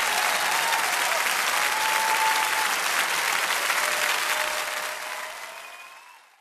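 Audience applauding steadily, fading away over the last second or so.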